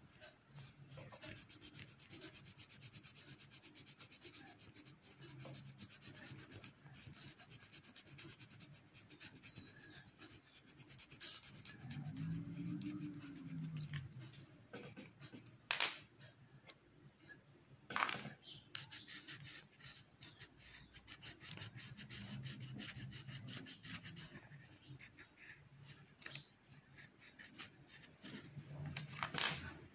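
Coloured pencil scratching on paper in rapid, repeated strokes, the hatching of pencil colouring. Two or three sharp knocks, about halfway through and just before the end.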